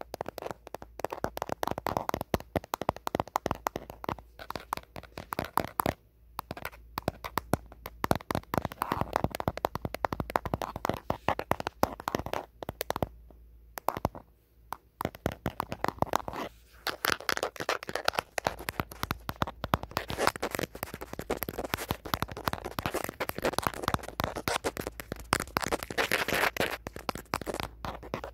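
Natural fingernails tapping rapidly and scratching on the back of an old phone around its camera, in dense runs of small clicks with brief pauses about six and thirteen seconds in.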